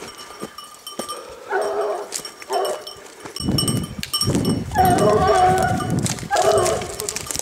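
A hunting dog giving tongue on a track: several short baying calls and one longer one about four to six seconds in. Heavy rustling through forest litter starts about three and a half seconds in.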